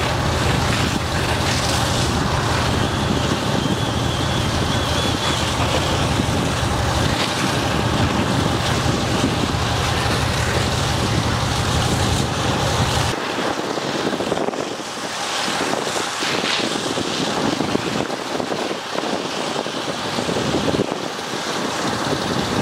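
Fire hose spraying water onto a smouldering garbage pile, a steady hiss of spray, over the low rumble of an idling engine that cuts off about thirteen seconds in.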